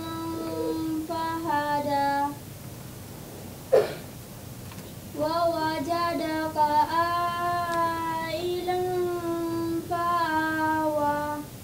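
A young girl's unaccompanied solo chanted recitation in long, held melodic phrases with ornamented turns. It breaks off about two seconds in, with one short sharp sound near four seconds, and resumes about five seconds in for a long phrase that stops near the end.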